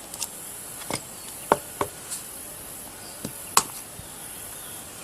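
A stamp being tapped and pressed down onto paper on a stiff board: about seven sharp, irregular taps. A steady high insect chirr runs underneath.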